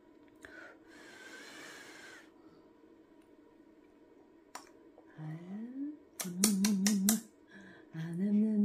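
Wordless vocal sounds, from about five seconds in: a short rising tone, then a louder wavering sound broken by sharp clicks, then a held tone near the end. A single faint click comes just before them.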